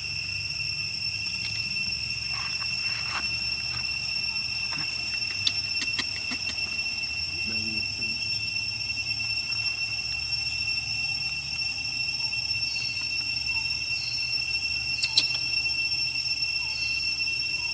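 Steady high-pitched insect drone, several even tones held without a break. A quick run of sharp clicks comes about five to six seconds in, and a louder single click near fifteen seconds.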